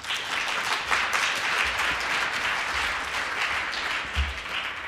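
A seated conference audience applauding at the close of a talk: a dense, steady clapping of many hands.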